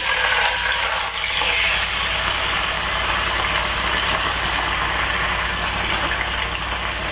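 Raw chicken pieces sizzling loudly in hot cooking oil in a karahi, a steady frying sizzle that eases slightly near the end.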